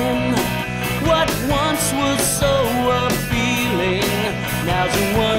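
Rock song playing: a full band with a steady beat under a lead line of bending, wavering notes.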